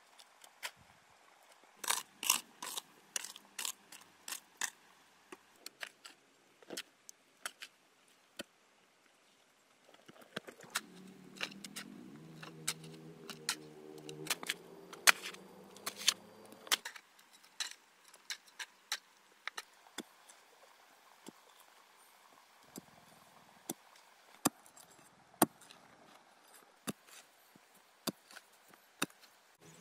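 A hoe chopping into dry clay soil: irregular sharp strikes of the blade and clods breaking apart. For several seconds in the middle a low hum with several steady tones runs under the strikes.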